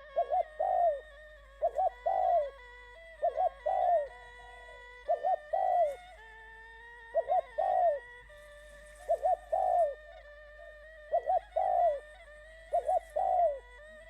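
Dove cooing: a repeated call of two short notes and a longer falling note, about every second and a half to two seconds.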